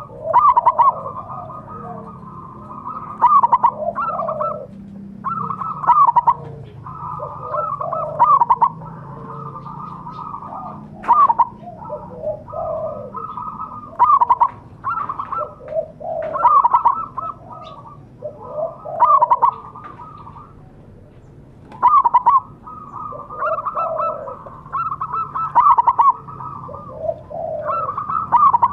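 Zebra dove (perkutut) cooing in its rapid, staccato song. Loud phrases repeat every two to three seconds.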